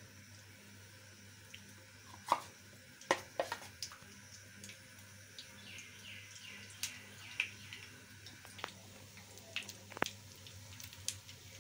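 Spoonfuls of thick besan pakora batter dropped into hot oil, frying with a faint sizzle, broken by several sharp clicks of a metal spoon tapping the steel bowl and the pan.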